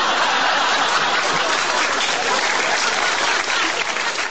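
Canned crowd applause: dense, even clapping that eases off slightly near the end.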